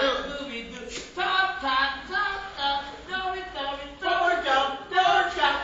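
Several voices calling out together in drawn-out, sing-song tones, held notes overlapping one another in short phrases.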